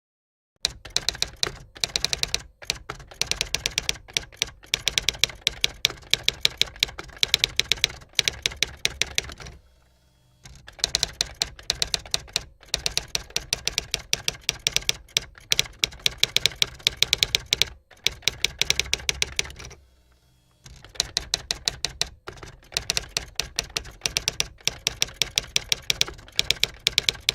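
Rapid typing clicks in long runs, several strokes a second, broken by short pauses every few seconds, the longest about a third of the way in and another about three quarters of the way in.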